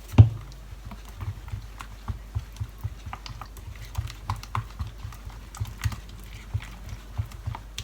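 A utensil stirring a pot of warm milk, cornstarch and caramel mixture. It makes soft, irregular knocks and clicks against the pot, a few a second, with one stronger knock right at the start.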